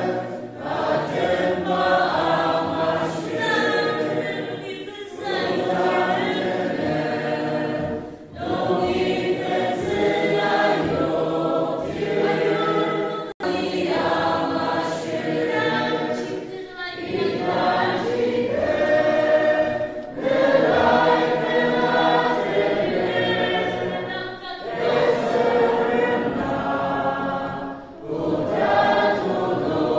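A choir singing a hymn together, phrase after phrase, with short breaks for breath every three to four seconds.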